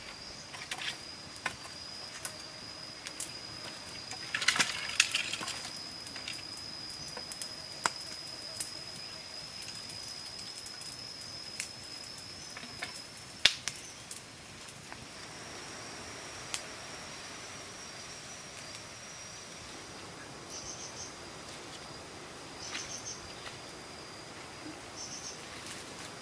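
A steady high-pitched insect call, which breaks off about thirteen seconds in and goes on fainter, with a few short chirps near the end. Over it come scattered snaps and crackles from a small fire of dry sticks, a dense cluster about four to five seconds in.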